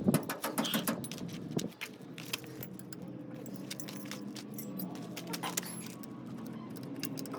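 Metal tools and engine parts clinking and rattling as they are handled: a quick run of clinks in the first second and a half, then scattered single clinks, over a faint steady hum.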